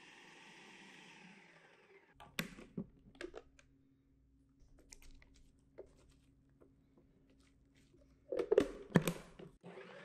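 A plastic food processor being opened and closed. A faint motor hum fades out about two seconds in, then the lid clicks free, a spatula scrapes and taps around the chopped vegetables in the bowl, and near the end a cluster of loud plastic clunks sounds as the lid and feed chute are fitted back and locked onto the bowl.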